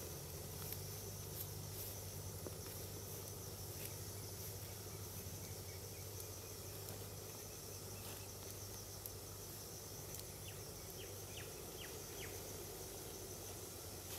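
Steady outdoor ambience with insects chirring throughout, and a few faint short chirps a little past the middle.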